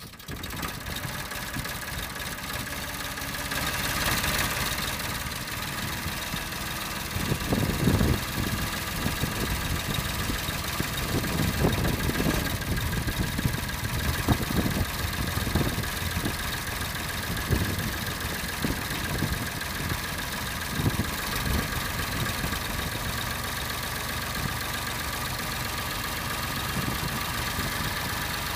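Massey Ferguson 231's three-cylinder diesel engine running. Uneven low surges come through the middle stretch as the front loader is raised and lowered, and the engine settles back to a steady idle near the end.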